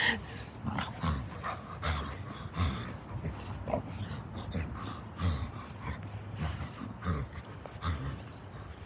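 A dog making short, low vocal sounds while rolling and squirming on a grass lawn, repeated irregularly about twice a second.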